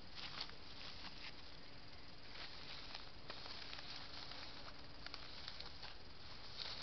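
Faint, irregular rustling and small clicks of a hedgehog moving in dry leaves close to the microphone, over a steady hiss, with a faint low hum through the middle.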